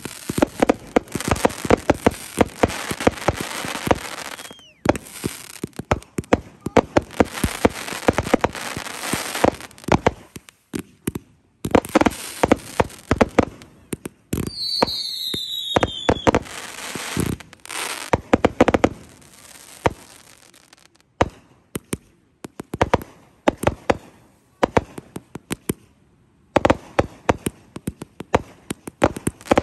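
Aerial fireworks going off in rapid volleys of sharp bangs as shells launch and burst, with short pauses between the volleys. A brief falling whistle sounds about halfway through.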